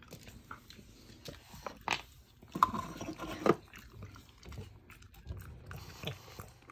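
A French bulldog chewing a dog treat and nosing after a piece of it on the floor: scattered short crunching and mouth sounds, the sharpest about two, two and a half and three and a half seconds in.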